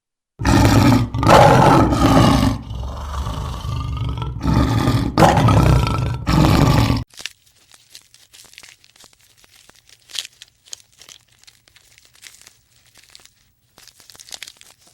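A large animal calling loudly, about six drawn-out calls one after another, then only faint scattered clicking and crinkling.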